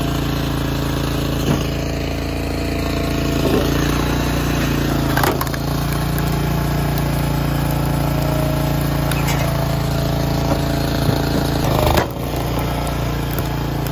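Engine of a log splitter running steadily, with a few sharp knocks and cracks as wood is split. The loudest crack comes near the end.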